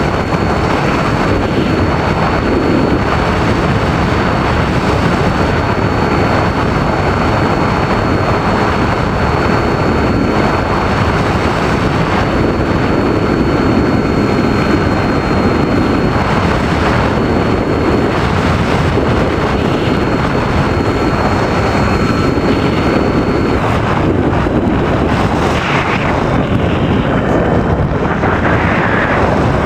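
RC model airplane in flight, heard from a camera mounted on it: a loud, steady rush of wind over the microphone with a thin, steady whine that drops out about 23 seconds in.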